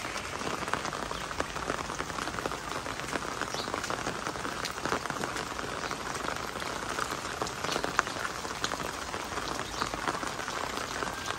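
Steady heavy rain falling, an even hiss with many sharp raindrop ticks close by.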